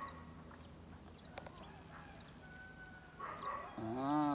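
A drawn-out animal call, rising then falling in pitch, near the end, over faint high chirps.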